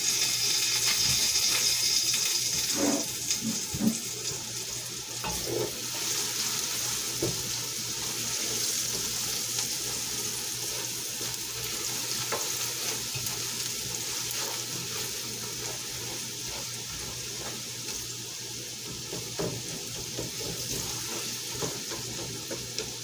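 Onions sizzling as they fry in a pot with stock cubes and seasoning, being stirred, with occasional light knocks of the spoon against the pot. The sizzle is loudest at first and slowly eases off.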